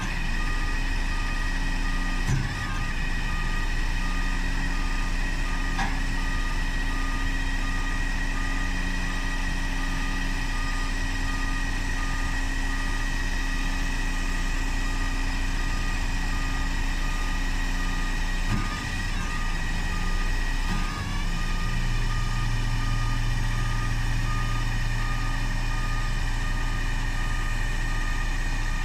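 Truck engine running and driving the hydraulic tipping system as a two-way tipper body is raised to tip sideways, with a steady whine and a regular beeping warning signal. About two-thirds of the way through the beeping stops and the engine and pump note deepens.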